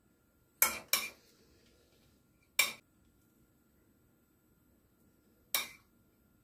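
A metal spoon clinking against a china bowl four times: two quick clinks about half a second in, one at about two and a half seconds, and one near the end.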